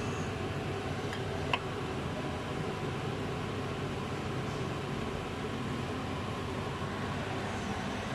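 A steady mechanical hum and hiss, with two light clicks about a second and a half in.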